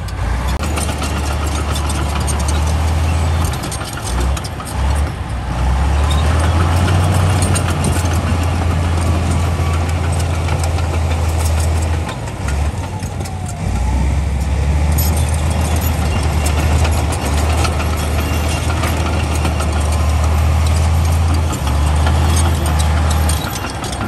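Komatsu D68E bulldozer's diesel engine working under load, with a low drone and a broad rattling noise over it. The drone dips briefly a few times, about 4, 12 and 22 seconds in, then comes back.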